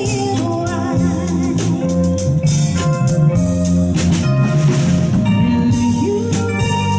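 Live band playing a soul-pop number: a finger-plucked electric bass guitar under a drum kit and held keyboard chords with an organ sound.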